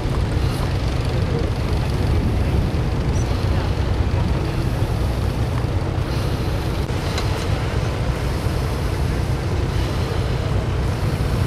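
Tractor engine running steadily, mixed with a heavy, steady low rumble of wind on the microphone.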